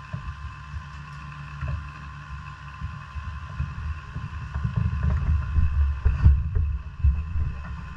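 Quarter midget race car's single-cylinder Briggs & Stratton Animal engine running, heard through a GoPro as a low, uneven rumble that grows louder about halfway through.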